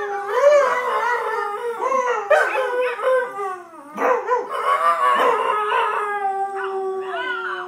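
Dogs howling, a Dalmatian with its head raised among them: several wavering howls overlapping at once, a short break about three and a half seconds in, then one long, steady howl near the end.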